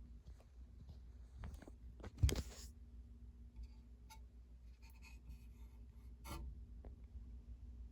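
Casablanca Genesis ceiling fan running with a steady low hum, its motor making a whirring noise that the owner takes for a sign the motor is failing. A single sharp knock about two seconds in, with faint ticks around it.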